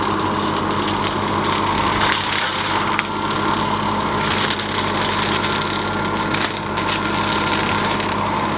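Cyclone 48-inch rotary brush mower running on a boom arm over the carrier machine's steady engine, cutting brush, with several sharp cracks and snaps of wood splintering.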